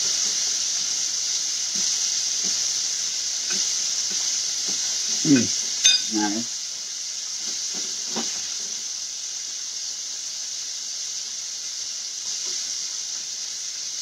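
Chicken frying in oil in a cast-iron skillet: a steady sizzle. A few brief louder sounds, one a sharp clink, come about five to six seconds in.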